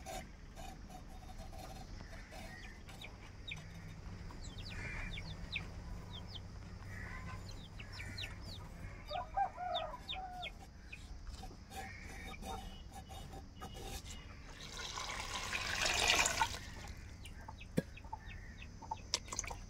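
Hen clucking with her chicks cheeping, many short high peeps scattered through the first half. About fifteen seconds in comes a rush of water lasting about a second and a half, followed by a few light knocks.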